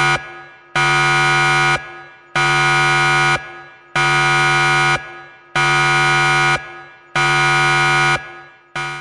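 Digital alarm clock buzzer going off at the end of a countdown: a loud, steady electronic buzz about a second long, repeated about six times with half-second gaps.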